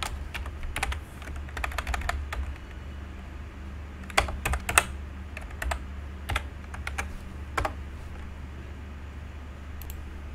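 Typing on a computer keyboard: a quick run of keystrokes, then scattered single key presses that thin out over the last few seconds, over a steady low hum.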